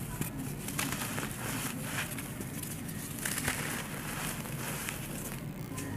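A dry, compacted clump of red dirt being crushed and crumbled by hand, with gritty crackling as it breaks apart. A little past the middle comes a grainier rush as the loose crumbs pour through the fingers onto the sand.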